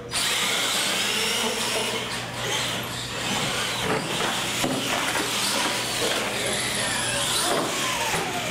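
Radio-controlled monster trucks racing, their electric motors whining and sliding up and down in pitch as they accelerate and let off. The sound comes in suddenly and loudly right at the start.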